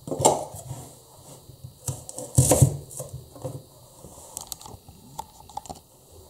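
Kitchen knife and an onion on a plastic cutting board: a few knocks as the knife is handled and the onion halved, the loudest clack about two and a half seconds in, then lighter taps and scrapes.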